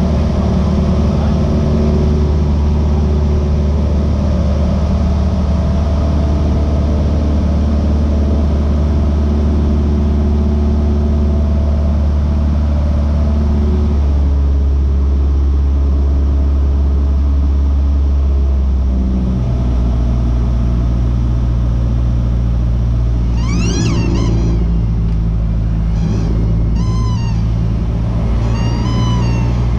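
Single-engine light aircraft's piston engine and propeller droning, heard inside the cabin during aerobatic manoeuvres. The engine note shifts about 14 seconds in and again about 19 seconds in. Near the end come several short, high-pitched wavering cries.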